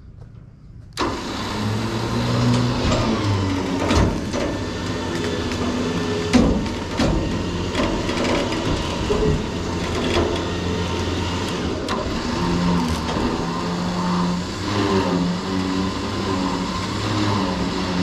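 Electric winch on the log trailer running under load, reeling in its cable to drag a log up to the log arch. The motor starts abruptly about a second in and runs steadily, its pitch shifting as the load changes, with a few sharp knocks along the way.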